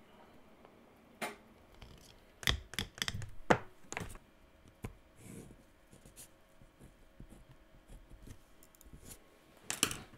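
Hands handling wire leads and clips on a tabletop: a scattering of sharp clicks and light taps, several close together between one and four seconds in and a short cluster near the end.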